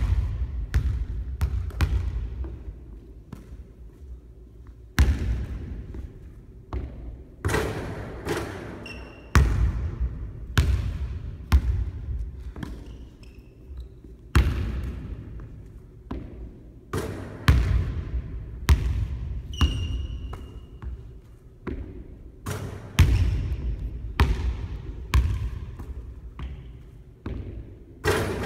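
Basketball bouncing on a hardwood gym floor: repeated thuds, some in short runs that die away as the ball settles, each ringing in the hall's echo. A few short high squeaks are heard now and then.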